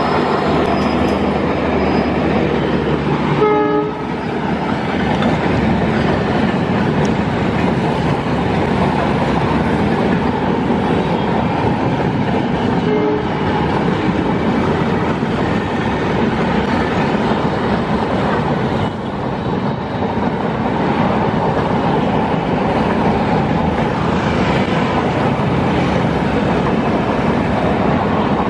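A long rake of LHB passenger coaches rolling past at speed behind a diesel locomotive: a steady clatter of wheels over rail joints. Brief train-horn notes sound about four seconds in and again, fainter, around thirteen seconds.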